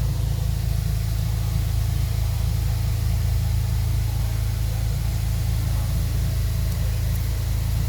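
A steady low rumble of an idling engine, unchanging throughout.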